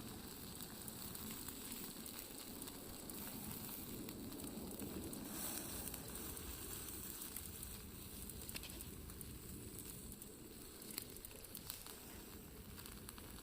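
Food sizzling over heat, a steady hiss with scattered small crackles and pops, easing a little in the second half.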